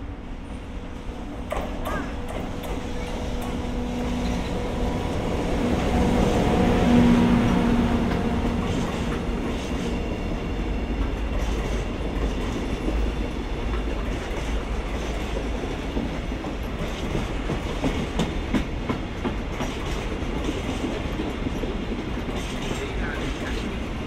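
EF64 electric locomotive passing close by with a steady hum, loudest about seven seconds in, followed by a string of empty Koki 50000 container flatcars rolling past, their wheels clacking rhythmically over the rail joints.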